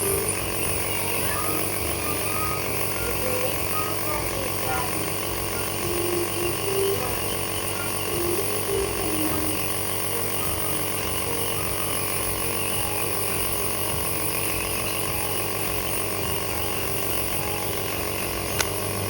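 Compressor nebulizer running with a steady electric hum, its pitch unchanging. There is a single sharp click near the end.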